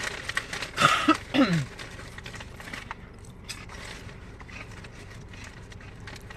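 A person eating in a car: chewing with small crunches and clicks. About a second in there is a short vocal sound falling in pitch.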